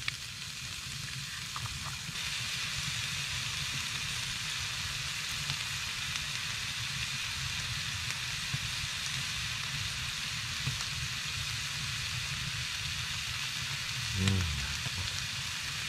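Deer steaks frying in a skillet on a wood stove: a steady sizzle that grows a little louder about two seconds in.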